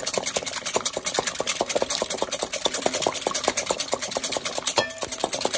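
Wire balloon whisk beating two eggs in a metal bowl by hand, its wires clicking rapidly and evenly against the bowl with a short break near the end. The eggs are being beaten until frothy.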